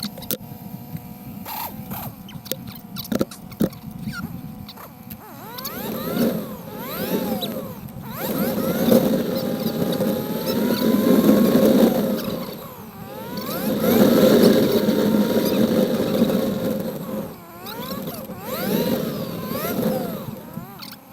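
Honda GL1200 Gold Wing flat-four motorcycle engine on a ride, revving up and easing off repeatedly as it pulls away and accelerates through the gears. A few clicks and knocks come before it gets going.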